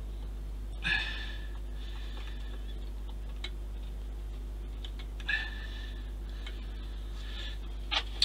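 A person breathing out sharply twice, about a second in and again about five seconds in, like sighs of frustration over fiddly work, over a steady low hum.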